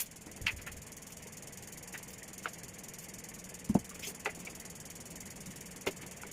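Eating and handling noises: a few scattered soft clicks and knocks over a faint steady hiss, the loudest a dull knock a little past the middle.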